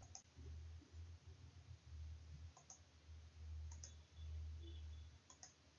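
Near silence with a low hum, broken by a few faint computer-mouse clicks, some in quick pairs.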